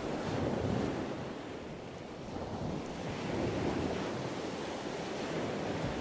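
Sea water sloshing and lapping close to the camera, mixed with wind rushing over the microphone: a steady, rough rush.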